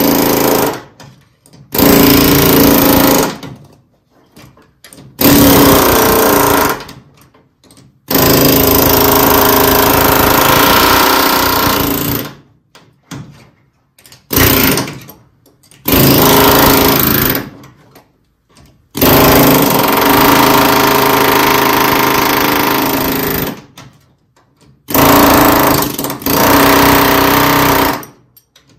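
Air chisel hammering in bursts of one to four seconds, about nine times, driving along the pinch-weld flange between a car's floor pan and rocker panel to pop the spot welds loose.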